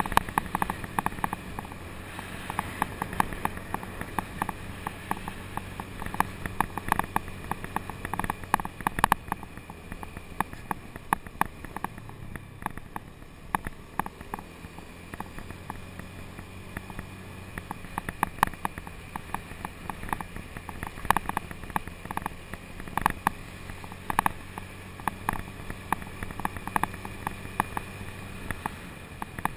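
Scooter ride heard through a GoPro: a faint steady engine hum under a constant, irregular clatter of clicks and knocks from the camera and mount rattling over the concrete road.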